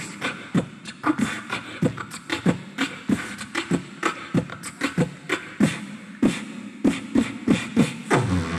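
Beatboxing into a handheld microphone over a PA, imitating a DJ's dance track: a steady beat of vocal kick-drum and snare hits, about three a second, with a low buzzing bass tone near the end.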